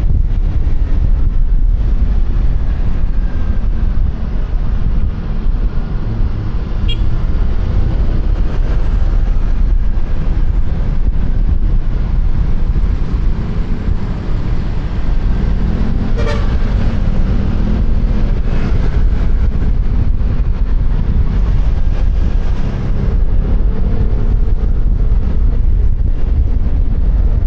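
Wind rumbling on a helmet-mounted microphone with traffic noise during a scooter ride, and a short vehicle horn honk about sixteen seconds in.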